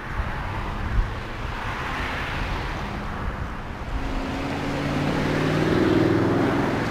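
Motor vehicle engine hum over road noise, growing louder through the second half and then holding steady.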